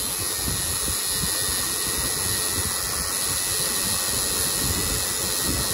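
Tattoo machine running steadily as it inks skin, a continuous noise with a strong hiss.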